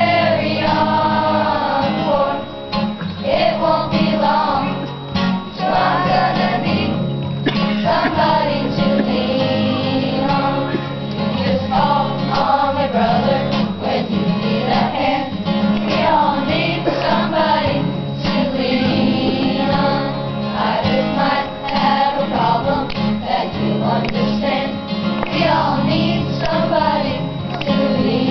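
Children's choir singing a song with acoustic guitar accompaniment.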